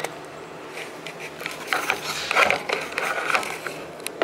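Handling noise from a phone camera being moved and set in place: a run of clicks, knocks and rubbing against clothing close to the microphone, thickest in the middle.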